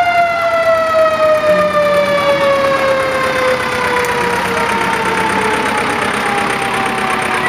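A mechanical siren winding down: one long tone that slides slowly lower in pitch.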